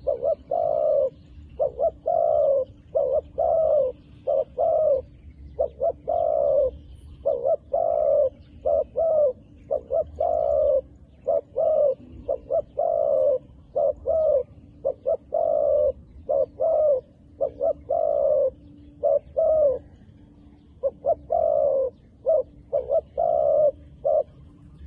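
Doves cooing over and over, with clusters of short quick coos mixed with longer coos and barely a pause between them.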